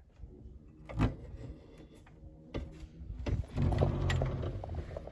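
Phone handling noise: a couple of sharp knocks, then fingers rubbing and scraping over the phone, loudest in the last second and a half.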